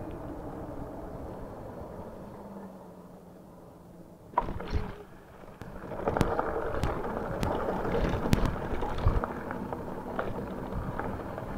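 E-bike riding along with a steady hum that fades as it slows, a sharp knock about four seconds in, then its tyres crunching over a gravel road with many sharp ticks of stones.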